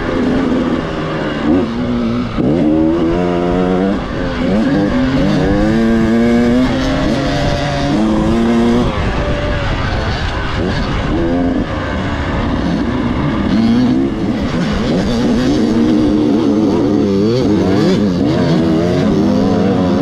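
Dirt bike engine revving hard, its pitch climbing and dropping again and again as the rider works the throttle and gears, over steady wind noise on the helmet camera's microphone.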